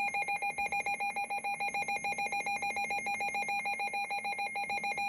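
Weather alert radio's alarm beeping rapidly, about seven pulses a second, a single pitched electronic beep, signalling an incoming severe thunderstorm warning.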